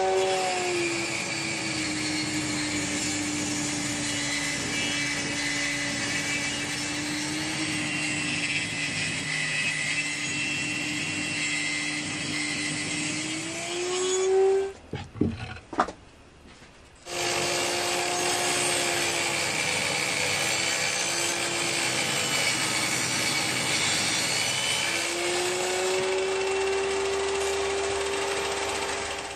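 Table-mounted circular saw ripping a log lengthwise: the motor and blade run with a steady whine that drops in pitch as the blade bogs down under the cut and climbs back up as the load comes off. This happens in two passes, with a short break about halfway that holds a few knocks.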